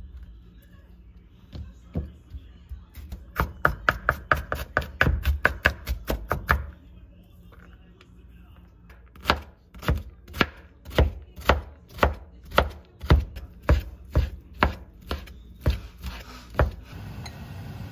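Chef's knife chopping on a bamboo cutting board, dicing onion, carrot and bacon. First comes a fast run of knife strikes, then a short pause, then a slower, even run of strikes at about two a second.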